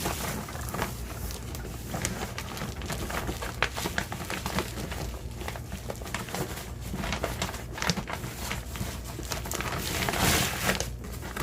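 Boxes and packaging being handled: scattered clicks, knocks and rustling, with a longer, louder rustle about ten seconds in.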